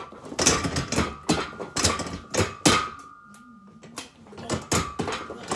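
Plate-loaded leg-curl attachment of a weight bench knocking and clanking through hamstring curl reps: a quick run of sharp metal knocks, two to three a second, that lets up for about a second past halfway. A faint steady high tone runs underneath.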